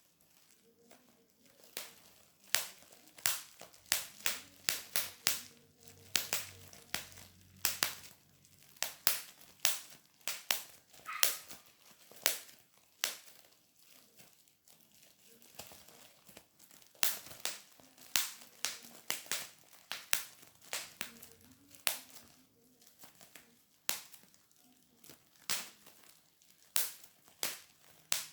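A long series of sharp, irregular pops, about one or two a second, some louder than others.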